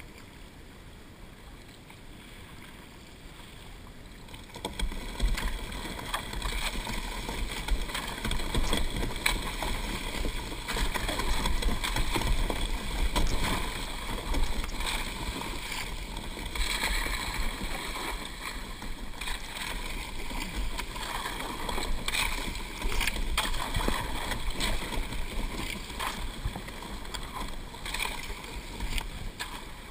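Sea kayak paddled through floating brash ice: paddle splashes and water along the hull, with small ice pieces knocking and scraping against the boat. It gets louder about five seconds in.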